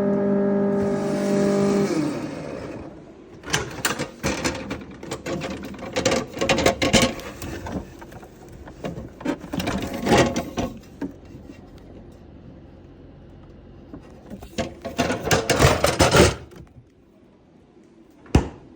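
Whirlpool refrigerator making a loud, steady hum that stops about two seconds in. It is followed by a long stretch of irregular knocking and rattling, then quiet with a single click near the end.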